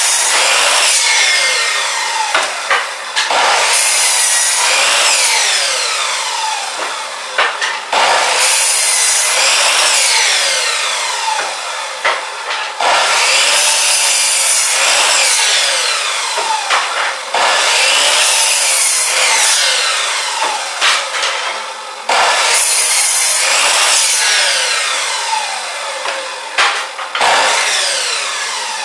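Electric chop saw cutting wood, one cut about every four and a half seconds: each starts abruptly and loud, then the blade's whine falls in pitch as it winds down.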